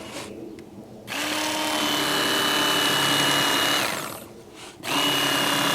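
Electric fillet knife motor running with a steady whine as it cuts the skin off a lake trout fillet. It starts about a second in, runs nearly three seconds, then winds down with a falling pitch. It starts again near the end.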